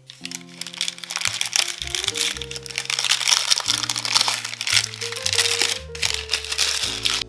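Baking parchment crinkling loudly as hands pull and fold it out from under a steel cake ring, over background music.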